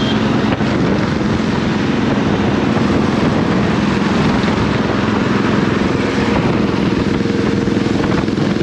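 Benelli TRK 502X parallel-twin motorcycle engine running steadily while riding, with a constant rush of wind and road noise over it.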